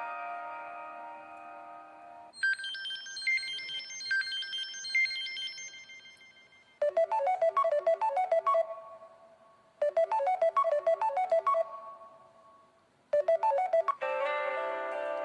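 Preloaded ringtones and message tones of a Samsung Galaxy Trend Plus phone, played one after another. A held chord fades out over the first two seconds, then a high chiming tune rings and dies away, then a quick run of short notes plays three times, the third cut short, and a new chordal tone begins near the end.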